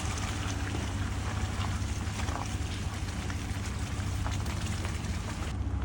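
Four-wheel-drive truck driving slowly along a road: a steady low rumble from the engine and the road, with a fine crackle of tyres rolling over wet ground.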